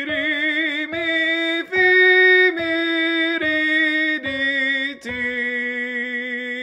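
A single voice sings a solfège vocal warm-up, one syllable per note: ri, mi, fi stepping up, then mi, ri, di stepping down, ending on a long held ti.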